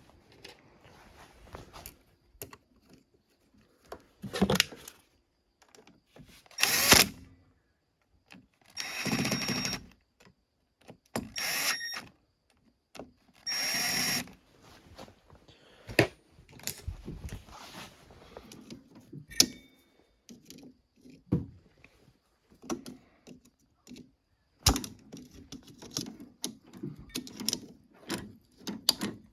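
Small power driver whirring in short bursts of about a second, several times in a row, with clicks and knocks of tools and parts between them.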